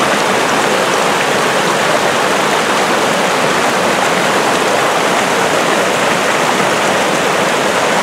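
Waterfall: water rushing steadily over rocks in a strong current.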